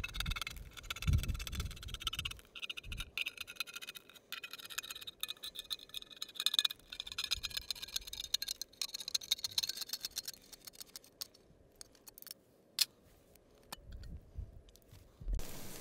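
A small hand-held can opener punching and scraping its way around the rim of a full steel food can, in quick repeated clicks and rasps that thin out to a few sharp clicks. Near the end the cut lid is pried up with a couple of soft knocks.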